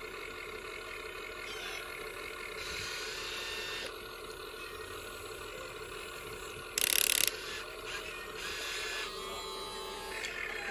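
Electric gear motors of a toy remote-control excavator whirring and grinding in changing spurts as its functions are worked, with a short loud burst about seven seconds in.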